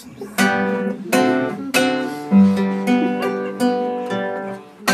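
Nylon-string classical guitar strumming chords in a steady rhythm, each chord struck sharply and left to ring: the instrumental opening of a sway-along song.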